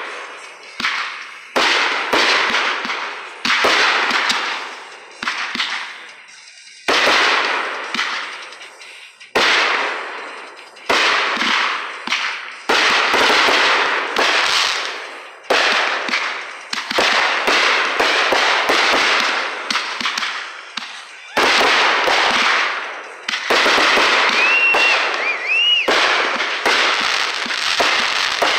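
Aerial fireworks bursting in quick succession, a sharp bang every second or two, each followed by a crackling, echoing tail. A couple of brief whistles sound late on.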